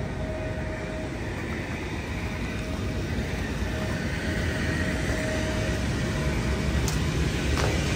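Steady airport ramp machinery noise: a continuous hum with a constant whine, growing slightly louder, as from aircraft ground equipment or an auxiliary power unit running nearby.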